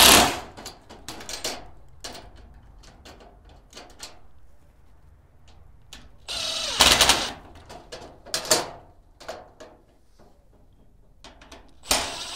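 Cordless impact driver run in several short bursts, the longest about halfway through, tightening small bolts into nylon-insert lock nuts held with pliers. Small metal clicks of the bolts and pliers come between the bursts.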